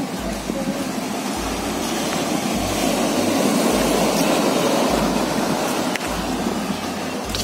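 Sea surf washing over a sloping concrete seawall: a steady rushing noise that swells between about three and five seconds in. Underneath it, a low pulse repeats about once a second.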